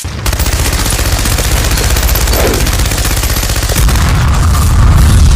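Machine-gun fire sound effect: one long, unbroken string of rapid shots, too fast to count, growing louder and heavier about four seconds in.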